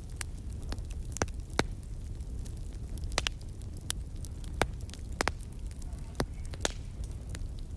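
Crackling wood fire: irregular sharp pops and snaps, about a dozen, over a steady low rumble.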